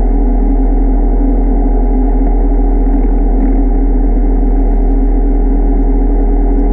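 Underwater scooter's electric motor and propeller running steadily: a constant loud hum with a steady low tone. It is heard underwater through a camera mounted on the scooter.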